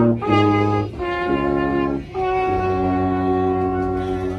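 Small brass band of tuba, horn and trumpet playing a tune in a railway carriage: a run of shorter notes, then a long held chord from about two seconds in.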